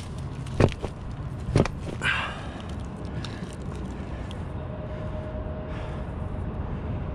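Two sharp knocks of plywood boards being handled and shifted, about half a second and a second and a half in, with a brief scrape just after, then a steady low outdoor rumble with a faint thin hum near the end.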